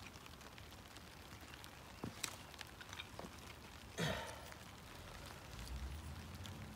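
A knife being batoned into a piece of wood with a wooden baton on a stump: two sharp knocks about two seconds in, a few lighter taps, and a louder knock with a splintering crack about four seconds in.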